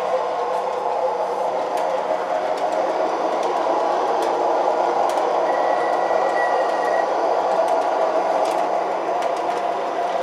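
Two O-gauge model PCC streetcars (MTH Proto-Sound 3) running on three-rail track: a steady running noise from their motors and wheels, with scattered light clicks. A brief faint high tone sounds a little after the middle.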